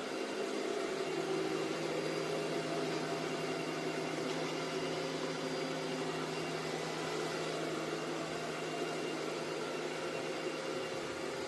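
Robot vacuum running: a steady motor-and-fan whir with several constant tones, starting abruptly and holding an even level.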